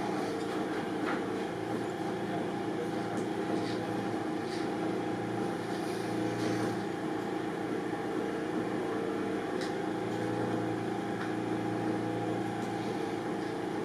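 Steady machine hum, even in level throughout, with a few faint ticks from a cricket ball's seam being hand-stitched with an awl and thread.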